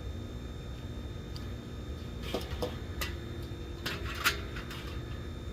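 Light clicks and scrapes of small metal parts as a dial thermometer and its wing nut are fitted into the lid of a Weber kettle grill. They come in a handful from about the middle on, the sharpest near the end.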